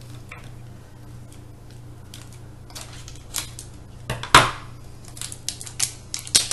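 Hands working a sealed mystery toy package: scattered small plastic clicks and taps, a sharp snap about four seconds in, then quicker clicking near the end. A steady low hum runs underneath.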